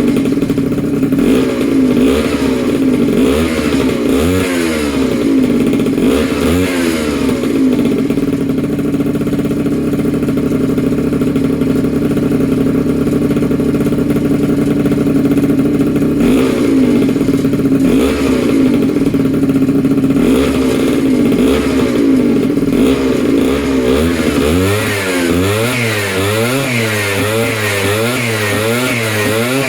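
Freshly rebuilt two-stroke engine with a Polini Corsa cylinder kit running on its first startup, held at a fast idle with a few short rev blips. Near the end the revs rise and fall rapidly over and over in a wavering pattern.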